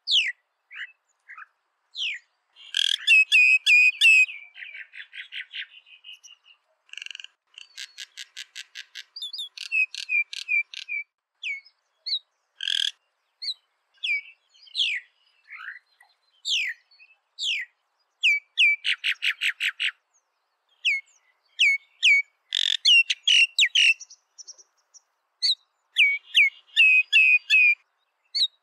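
Common myna singing: a varied string of short whistled slurs mixed with fast clicking rattles and dense chattering bursts, broken by short pauses between phrases.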